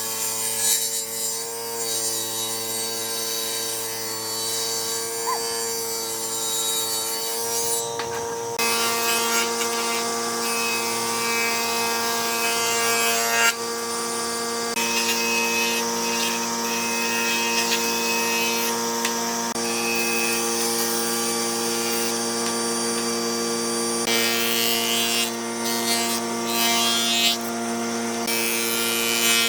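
Electric woodworking tool running with a steady hum while it cuts wood, with a rasping noise from the cutting. The sound changes abruptly several times.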